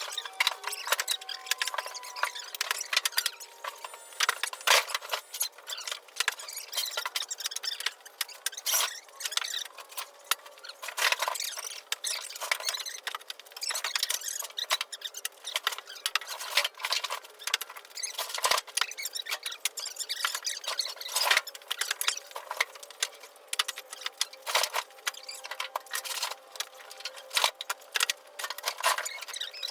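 Split firewood pieces knocking and clattering against each other as they are handled and stacked, an irregular run of sharp wooden knocks, several each second.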